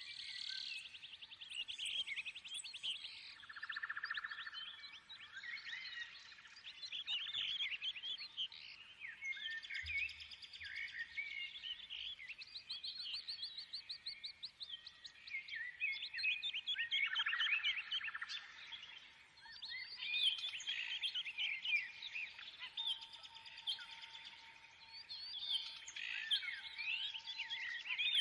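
Birdsong: many birds chirping, trilling and whistling in quick, overlapping phrases with no break.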